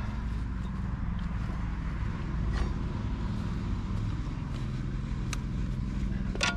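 MRF 140 RC-Z pit bike's single-cylinder four-stroke engine idling steadily, freshly refilled with oil.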